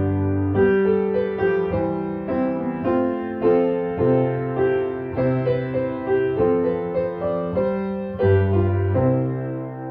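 Solo piano playing a slow, gentle instrumental piece, one note or chord about every half second, settling onto a held chord near the end.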